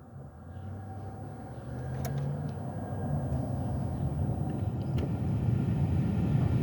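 Low vehicle rumble that grows steadily louder, with a couple of single faint ticks. There is no repeating clicking: the newly replaced blend door actuator is quiet.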